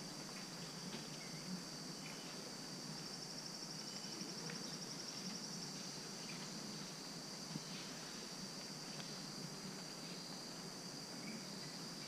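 Rainforest insect chorus: a steady high-pitched drone that pulses rapidly for a couple of seconds about three seconds in. A few short, faint chirps and a low steady rumble sit beneath it.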